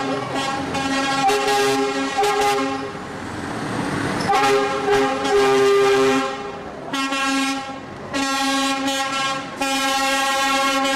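Air horns of passing Scania lorries sounding a series of loud, long blasts, several notes at once, with the chord changing from one blast to the next and short breaks between them.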